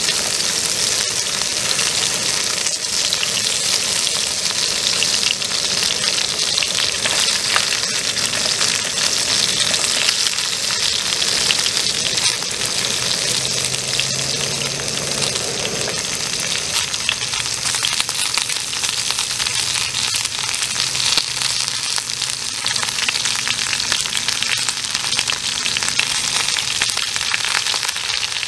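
Chunks of fatty meat frying in a small pan: a steady, dense sizzle full of fine crackles.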